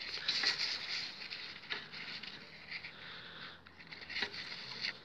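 Rustling and scraping of a thin white sheet of packing material being worked by hand into a van's sliding-window channel, in irregular bursts with small clicks, to take up play that lets the glass rattle.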